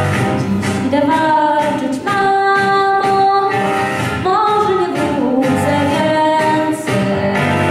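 A young girl singing solo into a handheld microphone, holding long notes, with a long held note in the middle and an upward slide in pitch a little after it.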